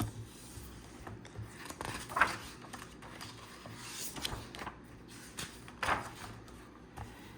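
Light handling noise of a picture book being opened and its pages turned: a few soft taps and paper swishes spread through the pause.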